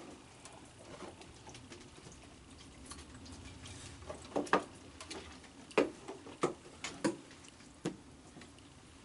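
Baby raccoons feeding on cookies: soft pattering and sloshing as one paws in a bucket of water, with a string of sharp clicks and knocks clustered in the second half.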